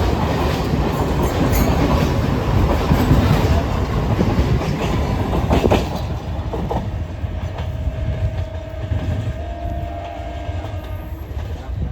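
Electric multiple unit (EMU) train running through at speed, its wheels clattering over the rail joints. About six seconds in the rumble drops away and fades, and a faint steady tone holds for a few seconds.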